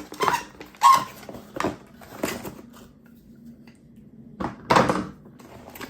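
Handling of a boxed screwdriver set: a few sharp clicks and knocks in the first two seconds, then a short rustle of packaging a little before the end.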